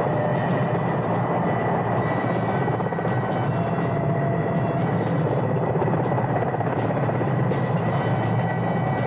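Helicopters in flight: a steady rotor and engine drone with a thin, high turbine whine held over it.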